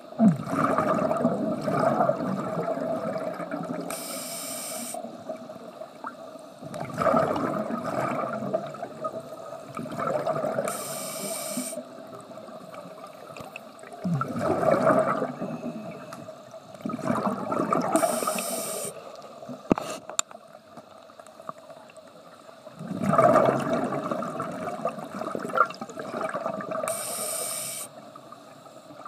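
Scuba diver breathing through a regulator underwater: a short hiss on each inhale, followed by a longer bubbling rush as the breath is exhaled. The breaths come slowly, one every six or seven seconds.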